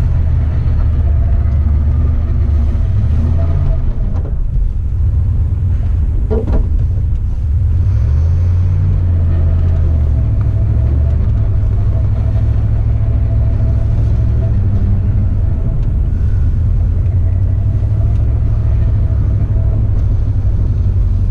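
Dodge Ram 1500 conversion van driving on a snow-covered road, heard from inside the cab: a steady engine and tyre rumble whose engine note shifts a little about eight seconds in. A single knock sounds about six seconds in.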